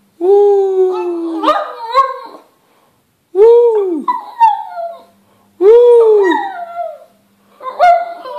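Shih tzu howling ('singing'): three long drawn-out howls with short pauses between, the later ones rising and then falling in pitch, and a fourth starting near the end.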